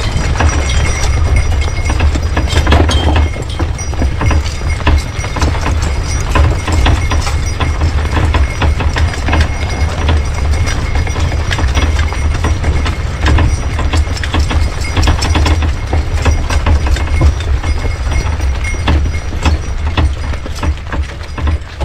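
A horse-drawn vehicle rolling behind a walking team, rattling and clacking continually over a steady low rumble.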